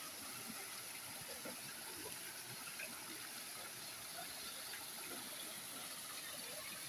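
Steady rush of running water, an even hiss with faint scattered ticks.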